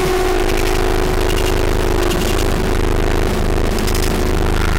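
Harsh noise music: a loud, unbroken wall of distorted noise over a steady droning tone and a fast, stuttering low rumble.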